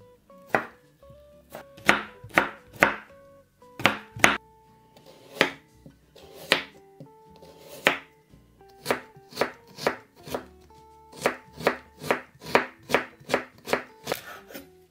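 Chef's knife cutting cucumber and then carrot on a bamboo cutting board: a series of sharp knocks as the blade meets the board, unevenly spaced and coming faster, about two to three a second, in the second half. Soft guitar music plays underneath.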